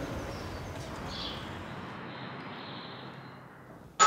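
Street ambience with a few faint bird chirps, fading down. Right at the end a doorbell chime sounds, two steady ringing tones.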